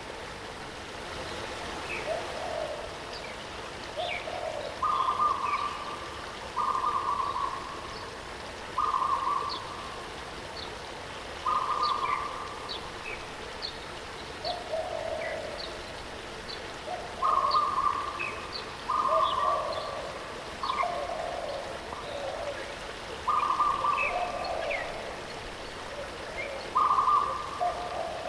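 Waterfall rushing steadily while several birds call over it: a repeated hoot-like note held at one pitch for under a second, often given twice in quick succession, lower notes between them, and scattered short high chirps.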